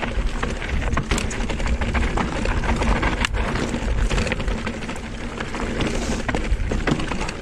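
Riding noise of a Canyon Spectral:ON electric mountain bike descending a loose dirt trail: tyres running over dirt and stones, with the bike clattering and knocking over bumps, sharpest about a second in and a little over three seconds in, over a constant low rumble.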